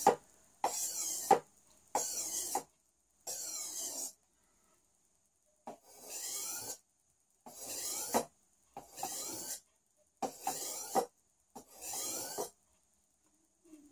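Steel cleaver blade stroked across a sharpening stone, a rasping scrape about eight times with short pauses between, as the edge is being honed.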